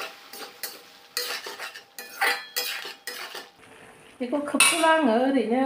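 Metal spatula scraping and clinking against a metal kadai as it stirs sliced vegetables frying in it, with a light sizzle. A person's voice comes in about four seconds in.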